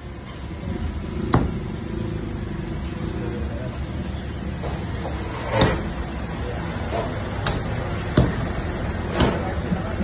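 A blade chopping through raw chicken onto a cutting block: five sharp, irregularly spaced knocks over a steady low background rumble.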